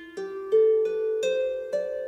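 Irish harp plucked in a slow rising run of single notes, about five in two seconds, each left to ring on under the next.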